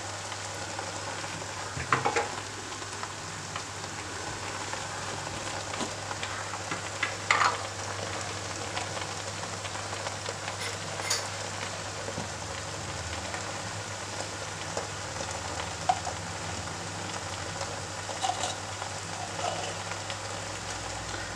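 Steady sizzle of a biryani pot on a low flame as ghee goes over the layered rice, with a few brief utensil clicks.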